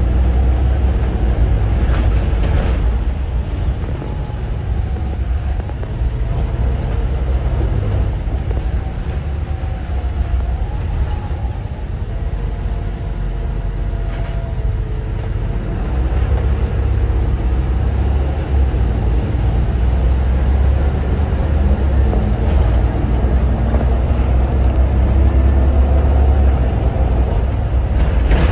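Volvo B7RLE single-deck bus under way, heard from inside the cabin near the rear: a steady low engine rumble with road noise, growing louder about halfway through.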